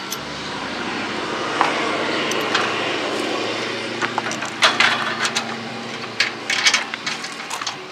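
A steady rushing drone that swells over the first few seconds. From about halfway there are light clicks and knocks of metal and plastic parts being handled on a camp stove's burner box and propane hose.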